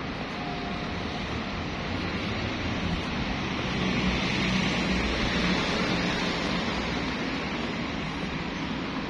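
Steady city traffic noise, swelling between about three and six seconds in as a vehicle passes, then easing.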